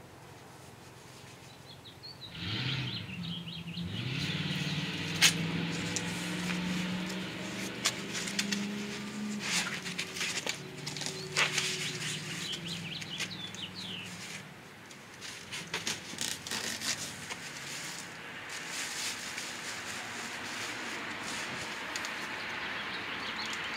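Foam packing and cardboard rustling and knocking as the top foam insert is lifted out of a generator's shipping box and the plastic-wrapped generator is uncovered, with a few sharp knocks. Underneath is a low hum that rises in pitch about two seconds in and fades out a little past midway.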